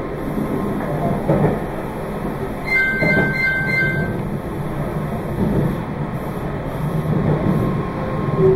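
Meitetsu 2200 series electric train running at speed, a steady rumble of wheels on rail and running gear. About three seconds in, a high ringing tone lasts about a second.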